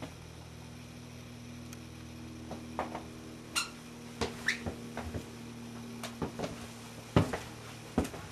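Irregular soft knocks and clicks, roughly a step's pace apart, from footsteps and the handheld camera moving through the rooms, over a low steady hum.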